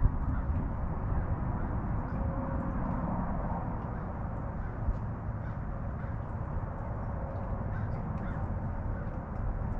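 Crows cawing now and then, faintly, over a steady low outdoor rumble.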